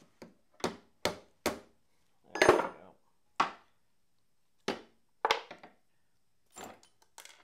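A ball-peen hammer tapping a steel punch on a wooden workbench, knocking apart an old dividing-head index plunger. There are four quick strikes, about two a second, then a longer louder knock and a few more single taps, and fainter clicks of small metal parts near the end.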